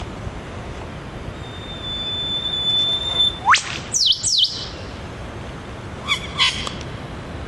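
Eastern whipbird duet: the male's long steady whistle ends in a sharp rising whip-crack, answered at once by the female's two quick descending notes. Two more short calls follow about two seconds later, over steady traffic noise.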